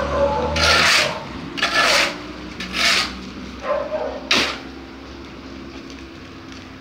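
Steel shovel scraping and scooping through wet concrete mix on pavement: about five rough scrapes roughly a second apart, the last and sharpest about four seconds in, then quieter.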